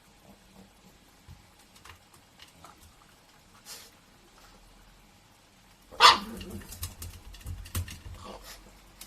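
A pug gives one sharp bark about six seconds in, after a near-quiet stretch of faint ticks. Scattered clicks and knocks follow.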